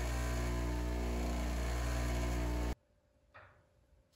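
An electric power tool's motor running steadily with a hum and hiss, then cutting off abruptly near the end, followed by a faint tap.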